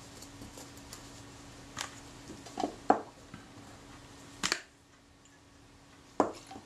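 A scattering of sharp clicks and knocks from small metal parts and tools being handled and set down on a work mat, the shutter mechanism plate among them; the loudest comes about three seconds in and another near the end.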